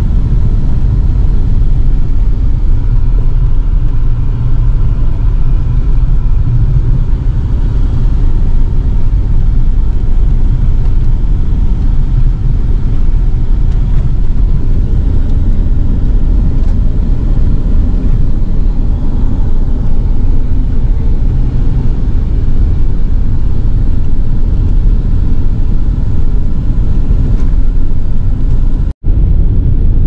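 A car being driven, its road and engine noise a steady low rumble. It drops out for an instant near the end.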